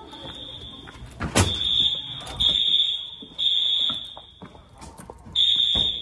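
Fire alarm horns sounding a high-pitched tone in the temporal-three evacuation pattern: three long blasts, a pause, then three more. A loud thump comes about a second and a half in.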